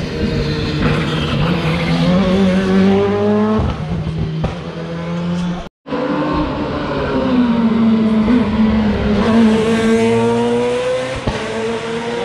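Rally car engine at high revs on a special stage, the note climbing and dropping as the car accelerates and changes gear. The sound breaks off for a moment about six seconds in, then the engine is heard again, its note rising near the end.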